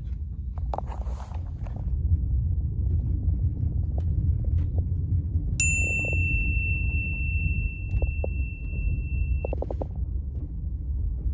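Low steady rumble of a TGV Euroduplex running, heard from inside the passenger car. About halfway through, a single high steady tone sounds for about four seconds.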